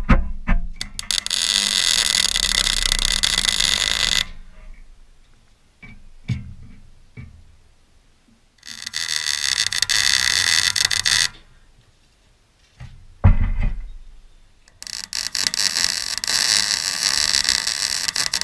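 MIG welder plug welding a steel rear bar: three bursts of crackling, hissing arc, each about two to four seconds long. Scattered clicks and a heavy thump fall in the gaps between the welds.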